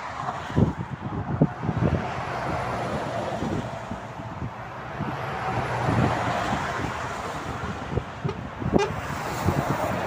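Highway traffic passing close by: trucks and vans with steady tyre and engine noise. A vehicle horn sounds for a couple of seconds near the middle.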